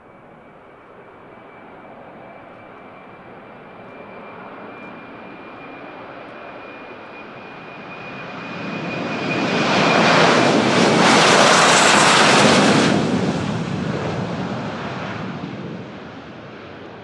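Embraer KC-390's twin turbofan engines in a passing flyby. The jet engine noise swells, with a thin high whine that fades as it builds. It is loudest about ten to thirteen seconds in, then dies away as the aircraft passes.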